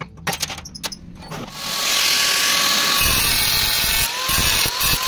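A power tool cutting or grinding metal. It comes up loud about a second and a half in, after a few light clicks, and runs steadily as a dense high hiss with a faint whine.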